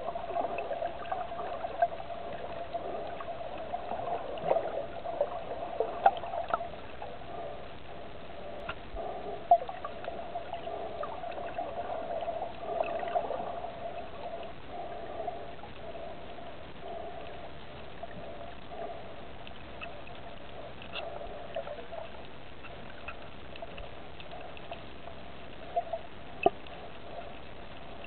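Shallow water lapping and trickling steadily, with a few sharp clicks now and then.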